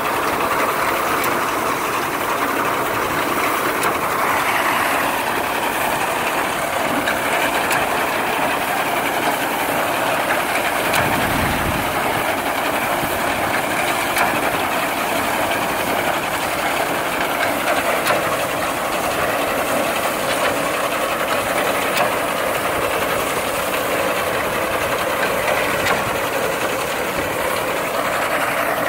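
Tractor engine driving a PTO-driven reaper-binder, running steadily with the machine's clattering mechanism. There is a brief low rumble about eleven seconds in.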